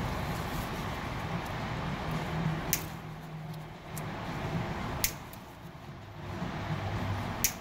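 Side cutters snipping the tails off nylon zip ties: three sharp clicks, about two and a half seconds apart, over a steady low hum.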